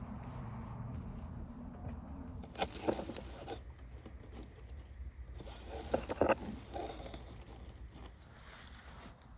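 Dry straw rustling and crackling in short bursts as hands reach into a straw nest box and lift out hen's eggs, once about three seconds in and again about six seconds in.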